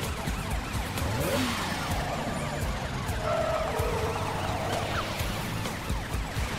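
Animated police car's siren wailing in quick rising and falling sweeps, with a brief rushing whoosh about a second in.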